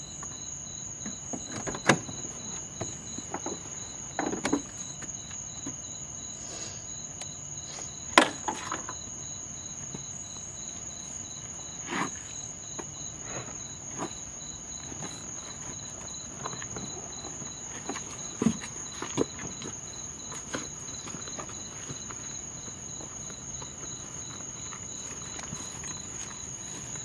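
Crickets chirping steadily in a constant high trill, with a few sharp knocks and some rustling from people moving about at an open pickup truck door; the loudest knocks come about two seconds and about eight seconds in.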